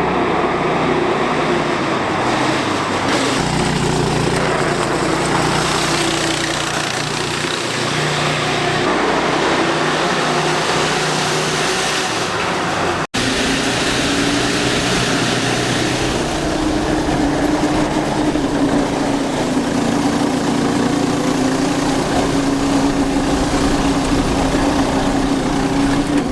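A 420cc single-cylinder four-stroke go-kart engine running steadily while the kart drives. There is a brief break about 13 seconds in, and the engine note rises a little soon after.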